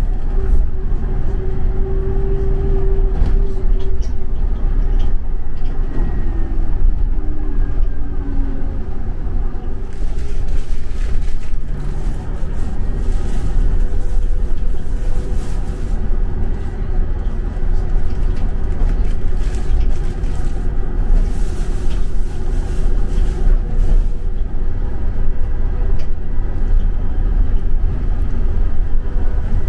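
Scania coach heard from inside the cabin while driving: a steady, loud, low diesel engine and road rumble with tyre hiss. A whine in it drops in pitch about six to nine seconds in.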